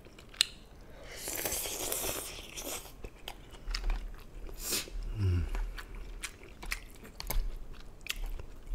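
A person eating jjamppong noodle soup: a slurp of noodles about a second in that lasts a couple of seconds, then chewing with small wet clicks, another short slurp, and a brief hum from the eater just after the middle.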